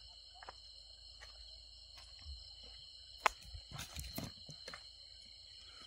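Steady high-pitched chorus of night insects, with scattered soft knocks and rustles close by; the sharpest knock comes about three seconds in.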